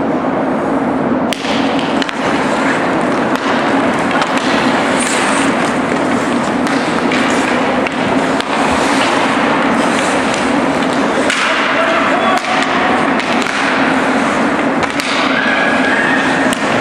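Ice hockey play: skates scraping on the ice, with sticks and the puck knocking and thudding at intervals, under a steady low hum and voices from the crowd and bench.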